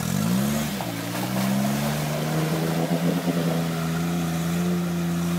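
Suzuki Jimny's engine revving under load as the 4x4 drives through a muddy water hole. The pitch climbs in the first half second, dips, then holds high and steady.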